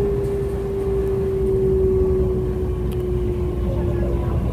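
Electric commuter train running, heard from inside the carriage: a low rumble with a steady motor whine that slowly drops in pitch as the train slows, and fades out near the end.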